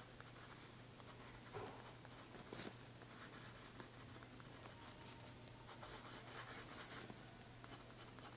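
Faint scratching of a glass dip pen's nib writing on notebook paper, with a few light ticks and taps of the glass tip on the page.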